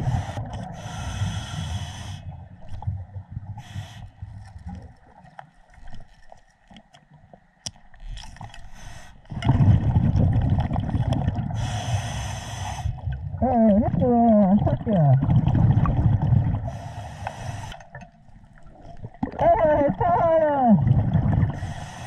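Scuba diver breathing through a regulator underwater: a hissing inhale every several seconds and bubbling exhales, some with a wavering, falling pitched tone.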